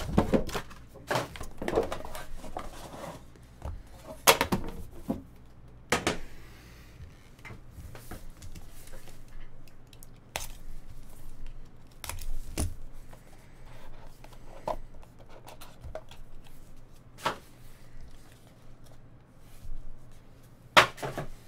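Hands opening a sealed cardboard trading-card box: a snap-off utility knife slits the seal, with cardboard scraping and rustling. Sharp knocks and clicks of the lid and box being handled come every few seconds.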